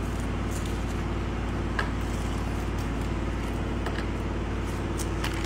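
A steady low background hum with a few brief faint clicks.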